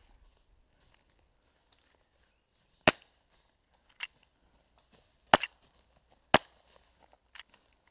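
Airsoft guns firing single shots: about six sharp cracks at irregular intervals, the loudest about three, five and six seconds in, with one quick pair.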